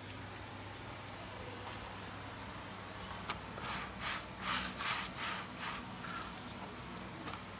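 Tongs scraping and turning a paratha in a flat pan over a wood fire, with the hot pan hissing in a run of about seven short strokes between about three and a half and six seconds in.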